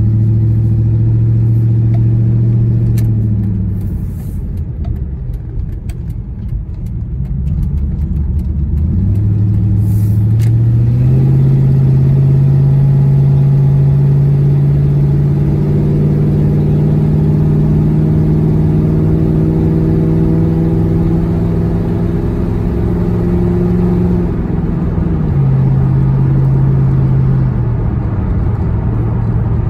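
Ford Mustang 4.6-litre V8 running under way, heard from inside the cabin: a steady engine drone that drops in pitch about four seconds in, climbs back around ten seconds, holds, then steps down twice near the end.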